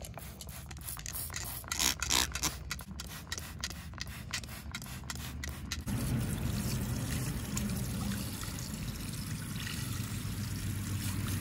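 A pump spray bottle of K&N filter cleaner is squirted again and again onto a cotton air filter, a quick series of short spray hisses. About six seconds in, water from a garden hose runs steadily through the filter and splashes onto the grass, rinsing the cleaner out.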